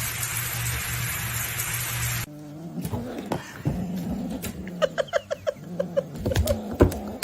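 Steady noise that cuts off abruptly about two seconds in. Then a cat makes a quick run of short, repeated meows.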